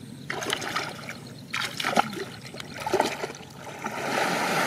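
Muddy pond water splashing and sloshing as a person wades through it, with a few sharper splashes around the middle and a louder, continuous rush of splashing near the end as he pushes forward through the water.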